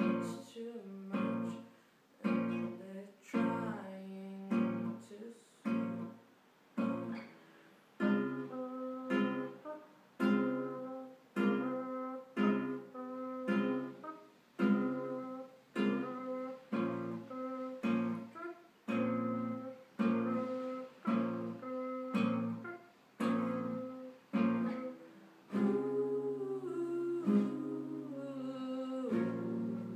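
Nylon-string classical guitar played fingerstyle: a steady pattern of plucked chords, one about every three-quarters of a second, each ringing and fading before the next. Near the end the chords ring on without gaps.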